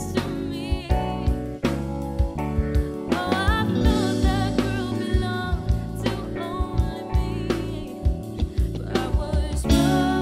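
Live band playing a soul song: a woman singing wordless runs with vibrato over a drum kit and electric bass.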